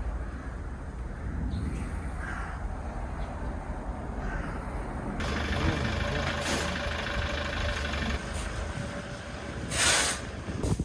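A vehicle engine running with a low steady rumble, a hiss of about three seconds in the middle, and a short loud burst of noise near the end.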